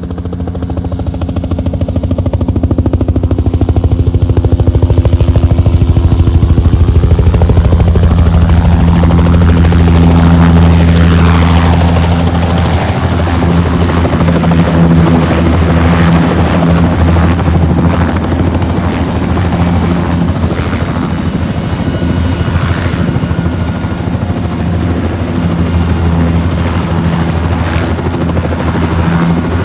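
Helicopter running: a steady low drone with fast rotor chop, building in loudness over the first few seconds, with a higher whine that shifts in pitch about ten seconds in.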